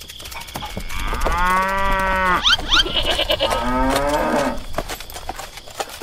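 A cow mooing twice: one long drawn-out moo, then a second moo that falls in pitch. Two quick high rising chirps come between the moos.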